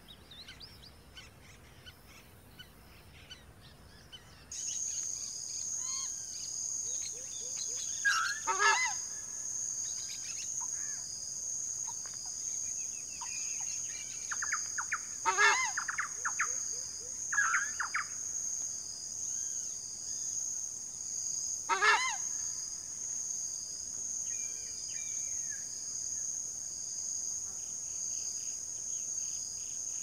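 Southern screamer calling: several loud calls spaced a few seconds apart, over a steady high-pitched insect drone that comes in a few seconds in. Before that there are only faint small-bird chirps.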